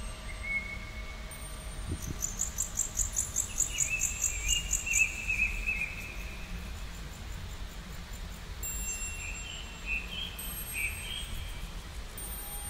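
Songbirds singing: a fast trill of high, evenly repeated notes a couple of seconds in, then warbling phrases and a few chirps near the end, over a steady low background rumble.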